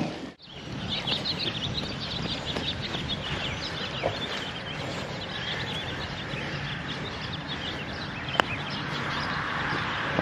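Outdoor ambience with birds chirping, dense for the first several seconds, and one sharp click about eight seconds in.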